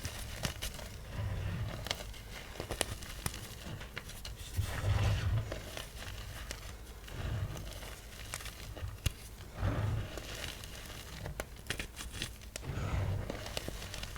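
Small blocks of dyed gym chalk (magnesium carbonate) crushed by hand: dry crunching and crumbling with crackly snaps, and a soft low thump every two to three seconds.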